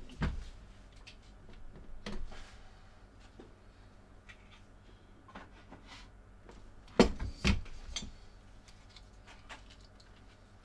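Light knocks of a leather heel pad and tools being handled on a bench, then two sharp clunks about seven seconds in, half a second apart, as a hand-lever hot-stamping press is worked to brand the pre-wetted leather with a heated die.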